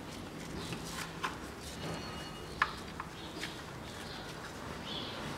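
Light clicks, taps and rustles as a rubber toothed timing belt is worked by gloved hands onto the twin camshaft sprockets of a 16-valve engine, with one sharper click about halfway through.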